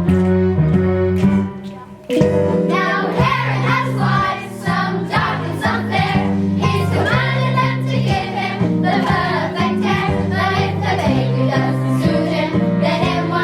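Children singing a song together over instrumental accompaniment, with a short break about two seconds in.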